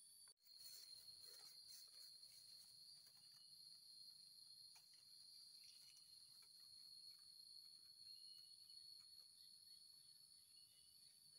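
Faint, steady chorus of insects in tropical undergrowth: an unbroken high-pitched buzzing drone on two high pitches. It drops out for a split second just after the start.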